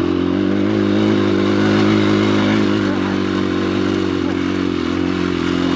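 Dirt bike engine running at a fairly steady speed while riding, its pitch wavering only slightly.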